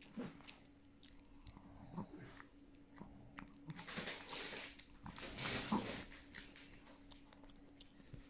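Two chihuahuas eating white beans from a bowl: chewing and biting with many small clicks, and two louder crackly stretches about four and five and a half seconds in.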